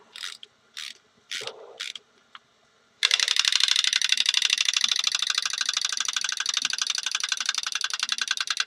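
Wind-up chattering teeth toy clacking rapidly, starting about three seconds in and slowing near the end as the spring runs down.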